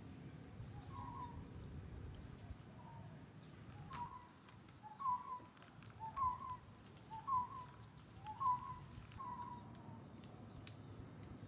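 A bird calling over and over, a short two-note call, a lower note stepping up to a higher one, about once a second. A few sharp clicks are mixed in.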